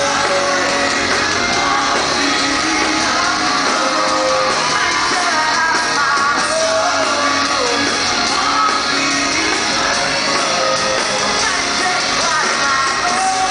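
Live rock band in full swing, recorded from the audience in a hall: a male lead vocalist sings over electric guitar and drums.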